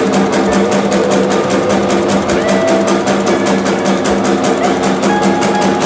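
Meatball-forming machine running, a fast even mechanical clatter of about eight beats a second over a steady motor hum.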